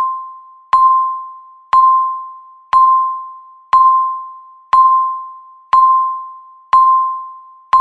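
Countdown timer beep: a single bell-like electronic tone struck about once a second, each with a sharp start and fading away before the next, all at the same pitch.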